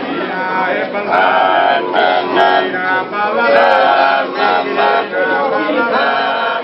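Several men singing together a cappella, held sung lines with no instruments heard.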